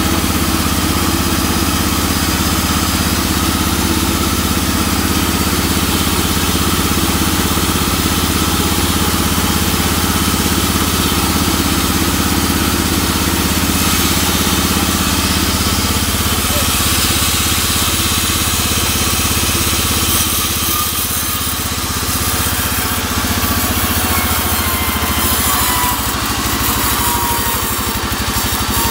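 Band sawmill running with a steady, loud mechanical drone from its drive and blade, easing slightly a little past two thirds of the way through.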